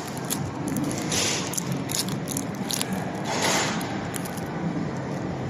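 Yu-Gi-Oh trading cards and foil booster-pack wrappers being handled: irregular rustling, crinkling and scraping, with two longer swells of crinkle about a second in and past three seconds in.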